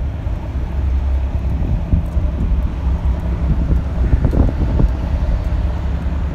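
Wind buffeting the microphone in a steady low rumble, with gusts swelling about four seconds in, over a low steady engine hum.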